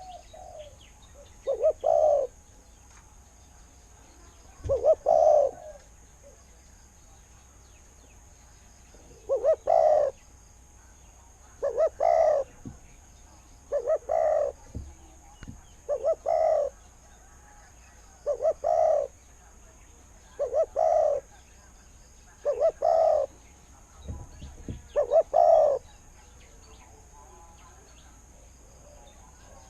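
Spotted dove cooing: a short multi-note coo phrase repeated about every two seconds, ending a few seconds before the close.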